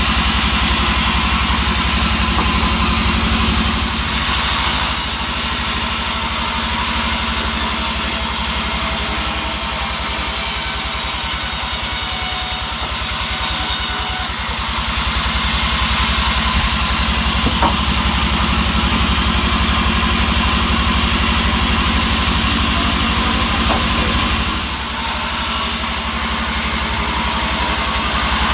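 Engine-driven sawmill running steadily while sawing a large pine log, a constant engine tone under a dense high rasp, with a few short dips in level.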